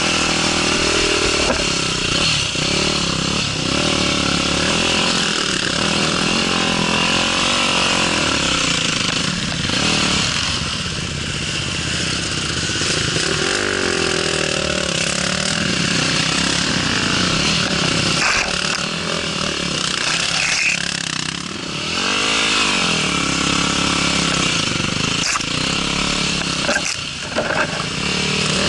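Off-road motorcycle engine running under load, its pitch rising and falling over and over with the throttle. A few sharp knocks come near the end.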